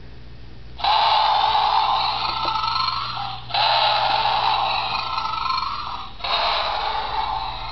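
Recorded tiger roar played from a white tiger plush toy's built-in sound box when its back is pressed. Three roars, starting about a second in, at about three and a half seconds and at about six seconds; each starts suddenly and fades out.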